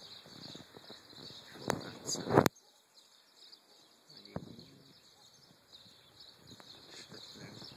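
Outdoor courtyard ambience with faint birds chirping, broken by a few bumps and clicks of the phone being handled, the loudest about two seconds in.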